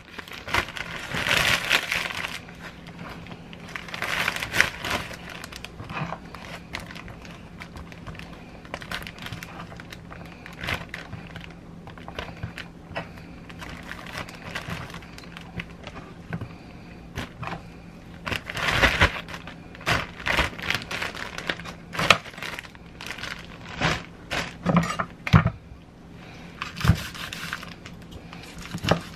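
Packaging crinkling and rustling as it is handled, coming in bursts, with scattered knocks and clatter of kitchen items being moved about.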